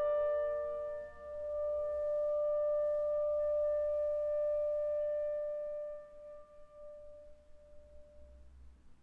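Final sustained chord of clarinet and piano: a held note and ringing piano strings, steady for about five seconds, then dying away into the hall's reverberation and faint room noise.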